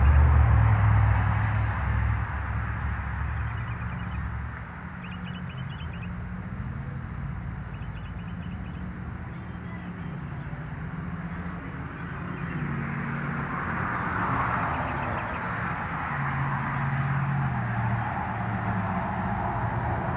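Landyachtz Gordito skateboard's wheels rolling on pavement: a steady rumble that is loudest for the first couple of seconds, then settles, with a rough rise again about two-thirds through.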